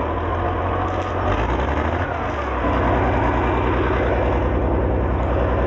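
International 460 tractor engine running steadily with an even low pulse; the engine note shifts about halfway through.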